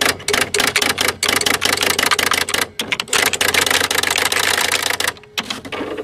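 Electric typewriter typing in fast runs of keystrokes over the steady hum of its motor, with brief pauses about one, three and five seconds in.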